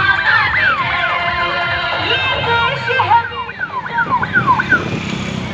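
Electronic siren giving rapid falling sweeps, one after another, that stop about five seconds in.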